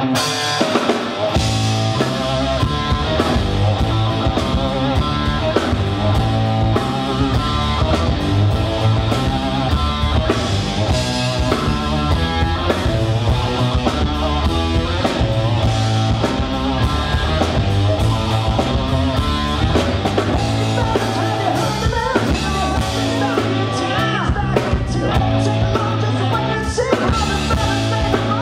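Live rock band playing on electric guitars, bass guitar and drum kit through amplifiers. The bass and drums come in about a second in, over the electric guitar.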